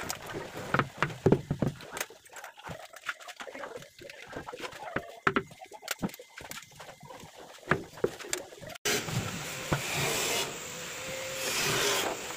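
Hands working on ceramic wall tiles and their small plastic spacers: a scatter of sharp clicks and taps. After a sudden cut about nine seconds in, a steadier rubbing, rustling noise takes over.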